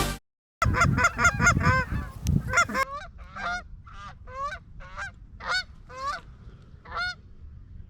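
Geese honking: a burst of many overlapping honks, then single honks about every half second that fade and stop about seven seconds in.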